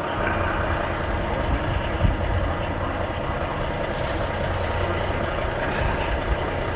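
Pickup truck engine idling steadily, heard from inside the cab, under a steady hiss.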